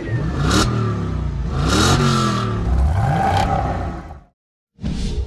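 Car engine revving up and down several times, its pitch rising and falling, with whooshing swishes laid over it. It cuts off abruptly near the end, and a new sound starts just after.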